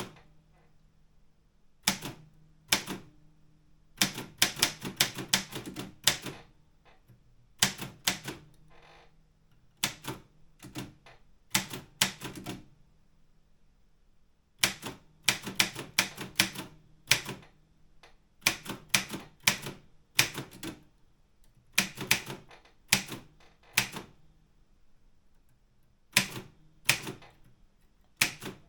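Optima Elite 3 manual typewriter being typed on, its keys and typebars striking in quick irregular runs of clicks with short pauses between words.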